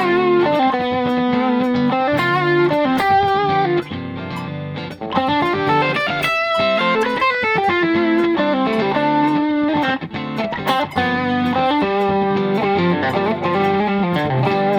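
Electric guitar, an Ibanez AZ2204, playing a melodic line in D Dorian over held lower notes; the major sixth is the note that gives it the Dorian sound rather than a plain minor one.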